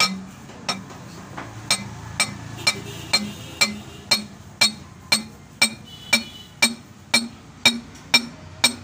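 Steady hammer blows, about two a second, on a steel bar driving a new cylinder liner into a 4C diesel engine block through a liner-installer tool. Each blow rings with a short metallic clang.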